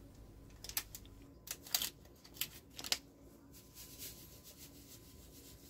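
Paper rustles and crinkles from a small paper vanilla-sugar sachet being handled and torn over a plate of chopped rhubarb: a few short, sharp sounds in the first three seconds, then quiet handling.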